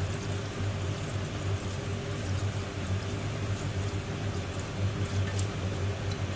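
Milk poured in a steady stream into a pan of vermicelli and milk, with a faint splashing hiss over a steady low hum from the kitchen.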